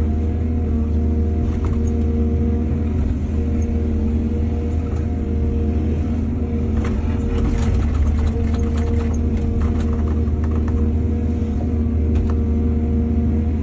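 Excavator's diesel engine running steadily with a deep, even drone. From about seven to ten seconds in there is a stretch of clattering and scraping.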